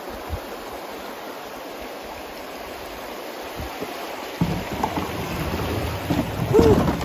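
River water rushing and splashing around a canoe as it runs through a small rapid. About four seconds in, the water noise grows louder with a deep rumble.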